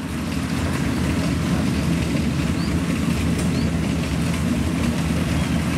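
Kubota DC-70 rice combine harvester running steadily while harvesting, a constant, even engine noise with no letup.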